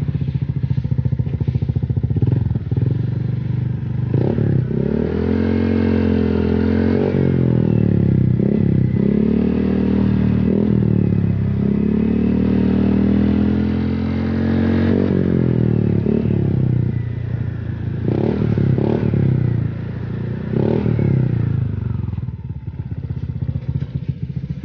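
Honda PCX 150 scooter's single-cylinder engine running through a freshly serviced Robi1 aftermarket racing exhaust, idling and revved up several times, with a longer hold in the middle and more short blips near the end. The exhaust note is bassy.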